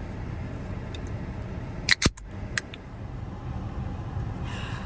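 Car running with a steady low rumble, with two sharp clicks close together about two seconds in and a lighter click just after.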